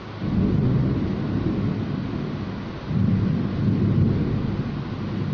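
Heavy tropical rain hissing steadily, with two long rolls of low thunder rumbling over it: one begins just after the start, the other about three seconds in.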